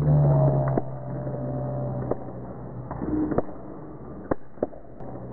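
Basketball game in an echoing gym: a raised voice in the first second, then scattered sharp knocks of the ball bouncing and players' shoes hitting the court, over a low hum.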